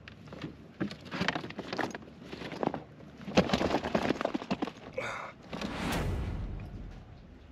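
A run of knocks, clunks and rattles from a fish and fishing gear being handled in a plastic kayak. Near the end comes a rushing rumble as the camera is moved.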